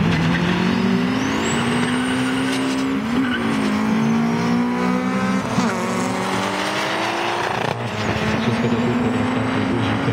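Turbocharged VR6 Audi and a Honda Civic accelerating hard from a drag-race launch. Their engine notes climb and drop back at each gear change: about three seconds in, near six seconds, and just before eight seconds. After the last shift the sound is fainter as the cars move away.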